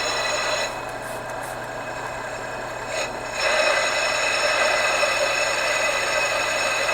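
Drill press running at 800 RPM, drilling a steel brake rotor with a 5/16 in. bit: a steady machine whine with several fixed tones over a noisy hiss. The sound drops for a couple of seconds from about a second in, then picks up again.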